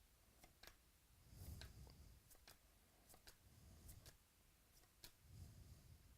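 Near silence with faint scattered clicks and a few soft low thumps: trading cards and pack wrappers being handled.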